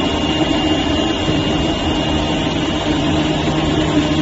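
CNC oscillating-knife cutting machine running as it cuts a foam sheet: a loud, steady mechanical drone with a low hum and a faint high whine throughout.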